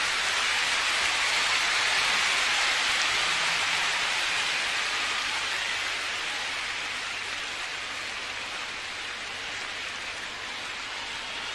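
Large concert audience applauding, a dense even clatter of clapping that slowly dies down through the second half.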